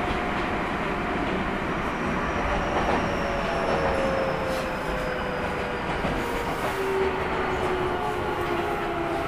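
Keio 1000 series electric train with a Toyo GTO-thyristor VVVF inverter, heard from inside the passenger car while running. Steady wheel and track noise carries the inverter's whining tones, which glide slowly down in pitch, with a few faint rail clicks.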